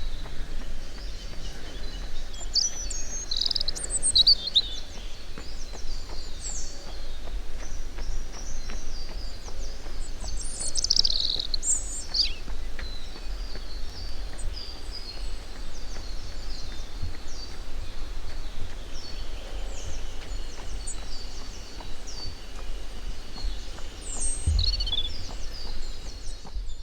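Several wild birds chirping and singing, with short high calls and trills throughout, over a steady low rumble.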